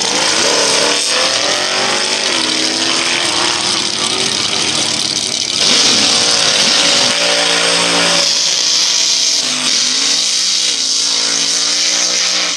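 Drag-racing car engines revving hard, their pitch repeatedly climbing and dropping, with more than one engine heard at once. A loud rushing hiss sits over them from about five to nine seconds in, fitting tyres spinning in a burnout.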